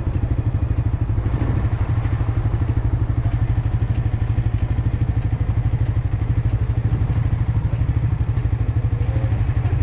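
Suzuki GSX-R sport motorcycle engine running steadily at low revs, with an even pulsing exhaust beat and no revving.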